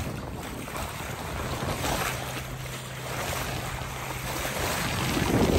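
A sailboat's bow wave rushing and splashing along the hull at about six knots, with wind buffeting the microphone. The water surges louder about two seconds in and again near the end, over a low steady hum.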